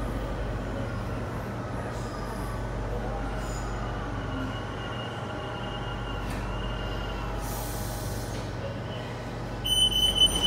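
A Rome Metro train running, heard from inside the car: a steady low rumble of wheels on rails, with faint shifting whines. Near the end, a loud, shrill, high-pitched pulsing tone starts.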